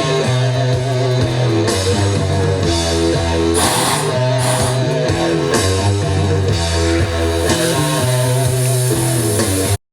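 Loud rock music with distorted electric guitar, bass and drum kit, which cuts off suddenly at the end.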